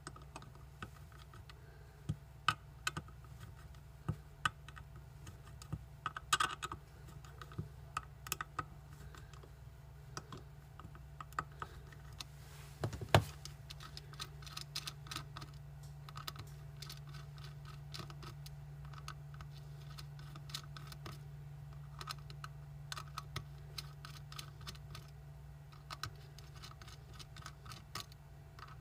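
Scattered small clicks and scrapes of hand tools on a hard drive's metal parts as it is taken apart to remove the platters, over a steady low hum. The sharpest click comes about 13 seconds in.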